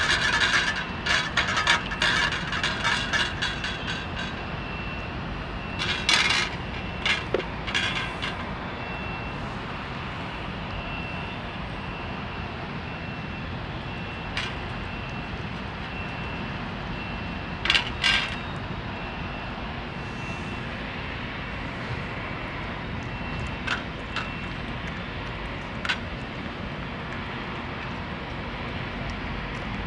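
A calico cat eating wet food from a stainless steel dish: bursts of quick, sharp chewing and licking clicks, thickest in the first few seconds, again a few seconds later and once past the middle, with single clicks near the end. A steady low rumble of background noise runs underneath.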